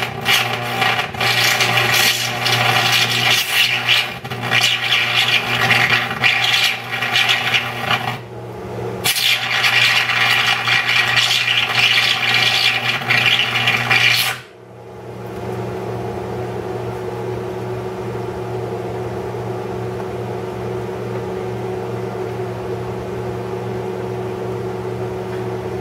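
Carbon arc struck between two carbon gouging rods on a stick welder at 105 amps, melting 17-4 stainless steel in a crucible: a loud, steady crackle and hiss that breaks off briefly about eight seconds in, strikes again, and stops abruptly about fourteen seconds in. After that only a steady hum from the idling welder remains.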